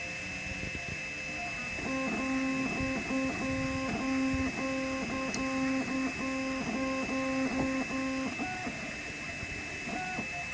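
Kywoo Tycoon 3D printer's stepper motors singing as the print head moves back and forth: a run of short tones at one pitch with brief breaks, lasting about six seconds, over a steady high whine.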